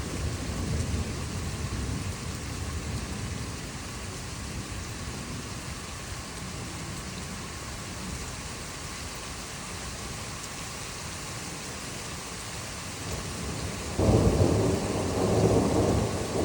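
Steady rain with thunder: a rumble dies away in the first seconds, then a sudden loud crack of thunder breaks about fourteen seconds in and keeps rumbling.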